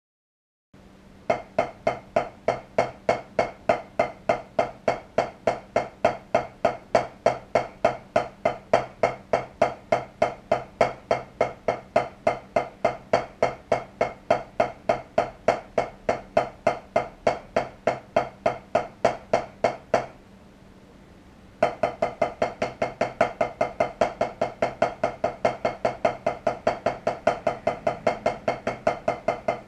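Drumsticks tapping a rubber practice pad in a fast, even stream of strokes: a finger-technique exercise of four strokes per hand then three per hand, alternating. It starts about a second in, stops briefly about twenty seconds in, and resumes.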